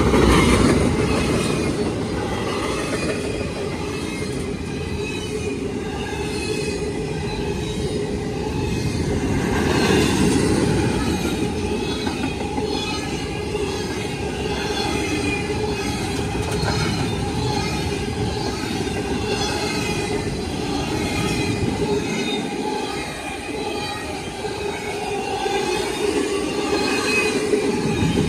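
Freight cars of a long Norfolk Southern intermodal train rolling past on the rails: a steady loud rumble of steel wheels with a thin, high wheel squeal wavering over it. The low rumble eases for a few seconds near the end, then builds again.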